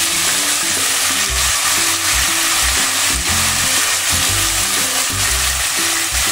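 Julienned potatoes frying in hot oil in a kadai, a steady sizzle, as handfuls of raw radish strips are dropped in on top. Background music plays underneath.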